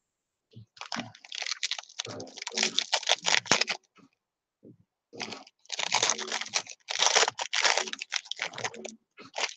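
Foil baseball-card pack wrapper being crinkled and torn open by hand: dense, irregular crackling in two bouts, the second starting about five seconds in.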